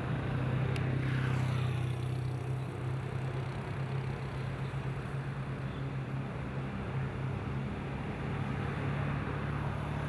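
Road traffic noise: a vehicle passes and fades in the first couple of seconds, then a steady low hum with a road-noise wash.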